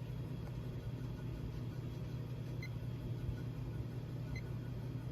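A 1938 Emerson round-nose ceiling fan running at full speed on its single speed: a steady low motor hum, with rattling from its loose canopy and light bulb. A few faint short high beeps come about halfway through and near the end.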